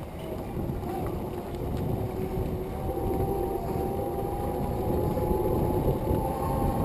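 Wind rush and rolling noise of a faired bicycle riding along a paved trail, picked up by a handlebar-mounted camera, with a steady whining hum that slowly rises in pitch and gets louder.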